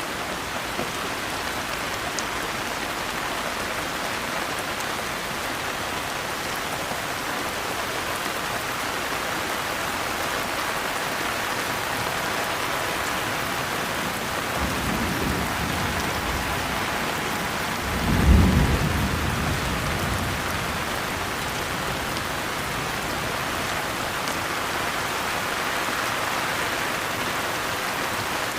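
Steady rain falling, with a low roll of thunder about halfway through and a louder thunderclap a few seconds later that rumbles away over a couple of seconds.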